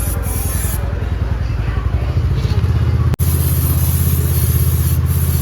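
Motorcycle engine idling with an even, rapid pulse; about three seconds in it jumps to a slightly louder idle.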